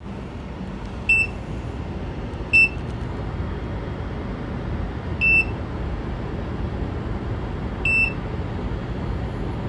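Short, high electronic beeps, four of them at uneven gaps of about two to three seconds, over a steady low rumbling hum.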